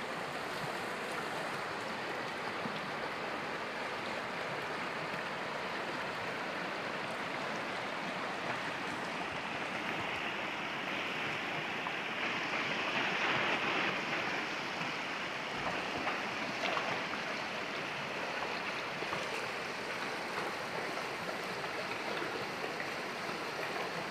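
Shallow, rocky river running fast over stones and small rapids: a steady rush of water that grows a little louder about halfway through.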